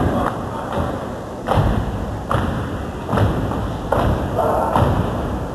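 A step team stomping and clapping in unison: sharp, heavy thuds roughly once a second.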